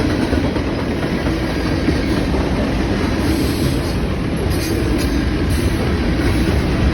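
A manifest freight train rolling past, its wheels running steadily and loudly on the rails.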